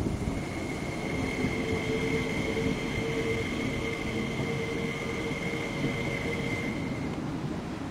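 An MTR SP-1900 electric multiple unit rolling slowly past on depot track, giving off a steady high-pitched whine with a lower steady tone beneath it. Both tones stop near the end.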